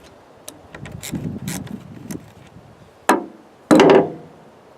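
Chainsaw parts and loose chain being handled during repair: small clicks and rattles, then a sharp knock about three seconds in and a louder clatter just after.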